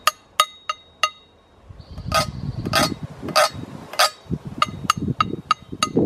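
A stick tapping and rubbing on the ridged outside of a tin can: sharp metallic taps that each ring briefly. Four light taps come first, then after a short pause four louder, evenly spaced taps, then a quicker run of taps near the end, with a rough scraping rub under them.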